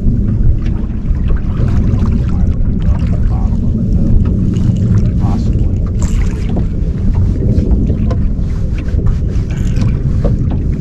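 Steady, loud low rumble of wind buffeting the microphone on an open boat on the river, with faint scattered ticks over it.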